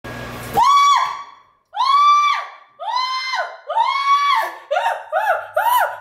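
A woman's high-pitched squeals, about nine in a row, each rising, holding and falling in pitch; the last few come shorter and quicker.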